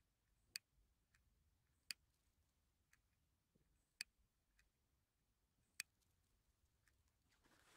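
A disposable lighter clicking four times, sharp single clicks one to two seconds apart, as it is struck again and again to light a firework fuse. A faint hiss starts near the end.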